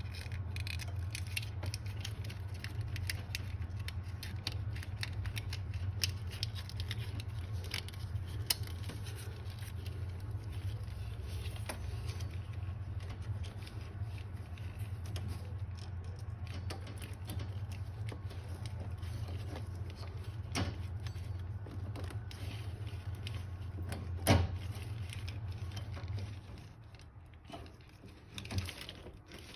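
Light clicks and taps of hands handling small plastic parts, a connector cover and wire conduit, with one sharper knock about three-quarters of the way through. Under them runs a steady low hum that stops near the end.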